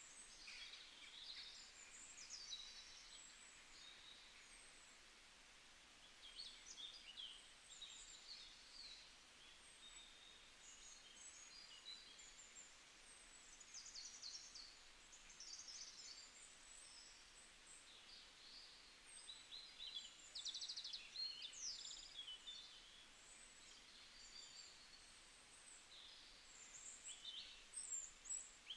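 Faint birdsong: many short, high chirps and twitters from small birds scattered throughout, with a brief rapid trill about two-thirds of the way in.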